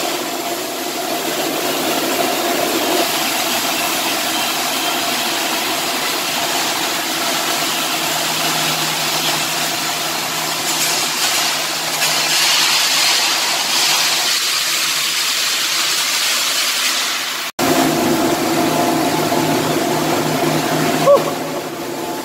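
Stick (SMAW) welding arc hissing and crackling steadily over a constant mechanical hum, the crackle strongest in the middle stretch. The sound breaks off for an instant a little after halfway, then carries on with the hum more prominent.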